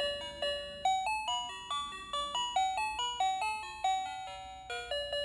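Dancing cactus toy playing an electronic tune through its small built-in speaker: a quick, chiming melody of single notes, each struck and fading.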